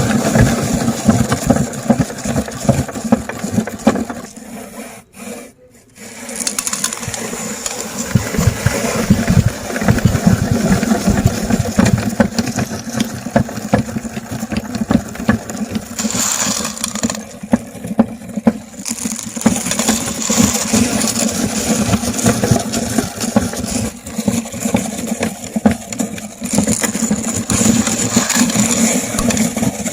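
Meat grinder running and grinding hard candy, a steady motor with constant crunching, cracking and rattling of the sweets. The sound briefly drops out about five seconds in, then carries on.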